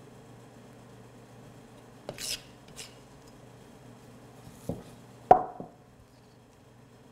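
A metal spoon scraping sticky wholemeal bread dough around a stainless-steel mixing bowl: two short scrapes about two seconds in, a knock, then a sharp clink of the spoon against the bowl a little after five seconds that rings briefly. A faint steady hum sits underneath.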